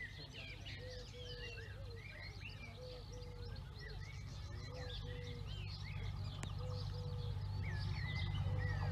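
Songbirds chirping and warbling, with a repeated low two-note call, over the low rumble of approaching Class 66 diesel locomotives that grows louder toward the end.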